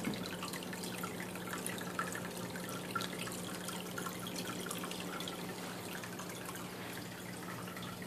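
Water dripping and trickling in a turtle tank, with many small scattered drips over a steady low hum.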